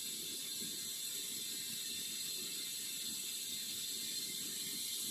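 Lit Bunsen burner running with a steady hiss.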